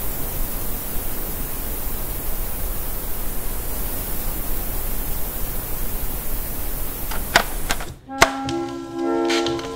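A steady, loud hiss of static-like noise with a few sharp clicks near the end. It cuts off suddenly and music with held notes and scattered clicks starts.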